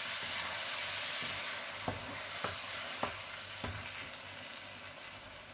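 Butternut squash curry sizzling in a wok as a wooden spatula stirs it, with four light knocks of the spatula against the pan in the middle. The sizzle is loudest at first and fades toward the end.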